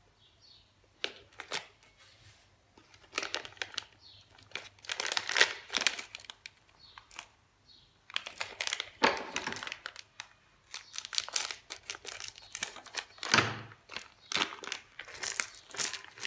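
Plastic chocolate wrappers crinkling in the hands in repeated bursts, with some tearing as the packets are opened: a Cadbury Shots packet and a Dairy Milk Silk Bubbly wrapper.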